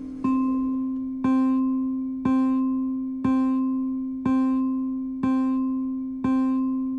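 Car's take-over-request warning tone, which asks the driver to take back control from automated driving. It is a low pitched electronic chime struck once a second with a sharp attack, each strike fading into the next, counting down.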